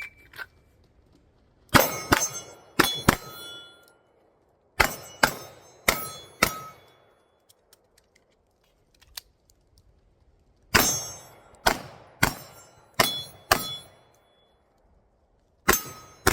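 A shot timer's start beep, then a string of pistol shots in quick groups of four or five with pauses of a few seconds between them, many followed by the ring of hit steel targets. The pauses are the shooter changing shooting position.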